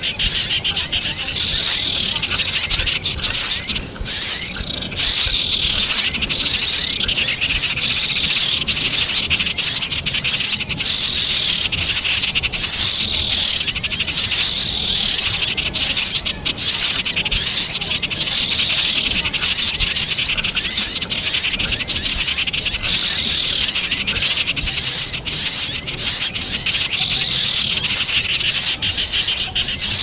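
Bird-lure recording of common iora (cipoh) chattering calls mixed with sunbird (kolibri) 'cuit-cuit' chirps. The chirping is rapid and high-pitched, runs in near-continuous phrases with short breaks every second or two, and is played loud to draw small birds in.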